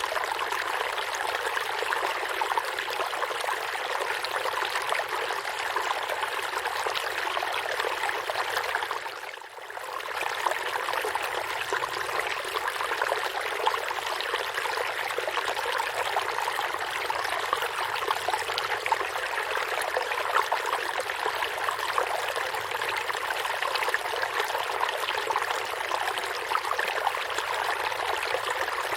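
Forest stream flowing, a steady rushing and trickling of water. It fades down briefly and comes back about nine seconds in.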